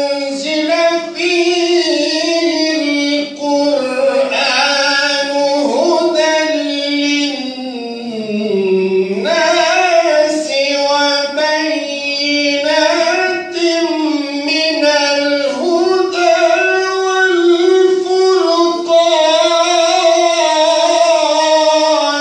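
A man's high voice reciting the Qur'an in the melodic, ornamented style, in long held phrases that slide up and down in pitch with brief breaths between them.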